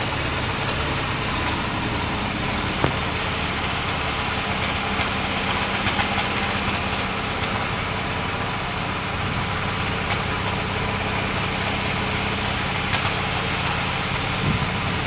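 An engine running steadily with a low hum, with a single sharp knock about three seconds in.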